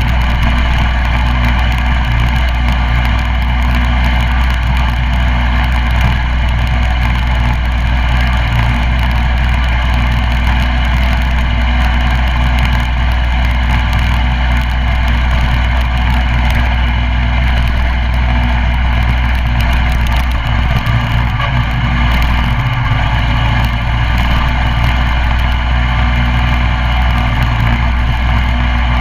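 Coleman CT200U mini bike's 196cc single-cylinder engine running steadily under way, loud and close.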